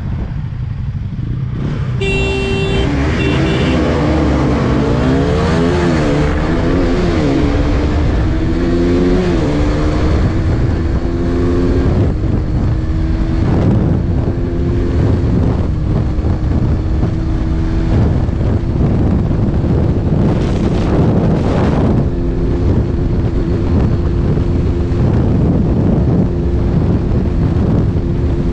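KTM RC200's single-cylinder engine at full throttle, climbing in pitch and dropping back at each upshift about half a dozen times, then held at a steady high pitch at top speed. A brief high tone sounds about two seconds in.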